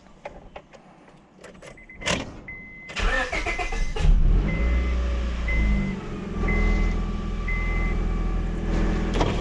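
Honda Civic D17 1.7-litre four-cylinder engine being started just after a valve adjustment: a short crank about three seconds in, then it catches near four seconds and settles into a steady cold idle. A high beep repeats about once a second over it.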